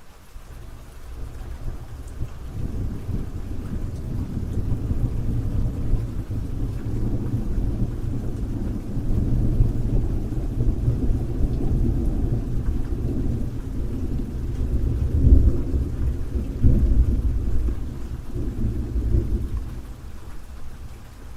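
A long rolling rumble of thunder over steady rain. It builds over the first few seconds, swells more than once, is loudest about fifteen to seventeen seconds in, and dies down near the end.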